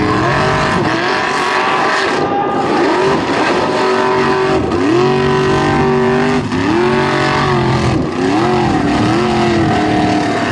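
Formula Offroad buggy's engine revving hard and unevenly as it climbs a steep sand and gravel slope, its pitch surging up and dropping back every second or so as the throttle is worked and the tyres spin.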